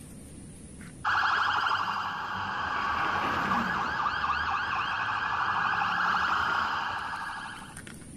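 Police car siren sounding in a fast warble, coming in suddenly about a second in and fading away near the end.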